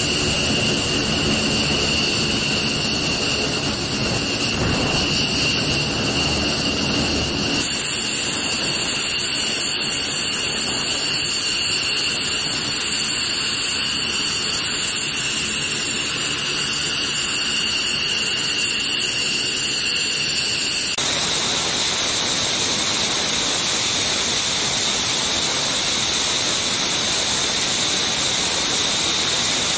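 Twin Pratt & Whitney F100 turbofan engines of an F-15C Eagle running on the ground during a hot refuel: a steady high-pitched whine over a loud rushing noise. The sound shifts abruptly about eight and twenty-one seconds in, becoming a broader, even hiss for the last part.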